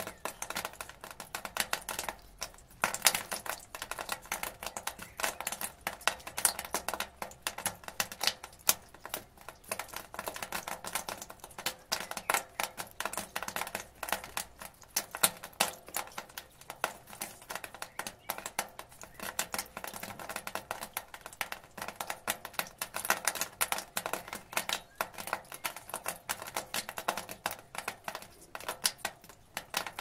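Rainwater dripping and splashing from a gutter onto the ground: a dense, irregular run of sharp drips that goes on without a break.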